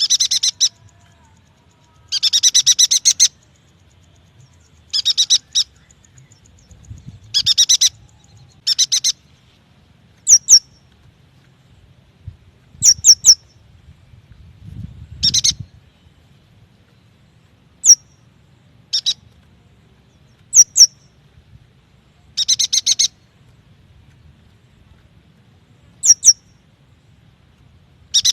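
Yuhina calls: short bursts of a few rapid, high-pitched chirps, repeated every second or two. Between the bursts come sharp, very high notes, often in pairs.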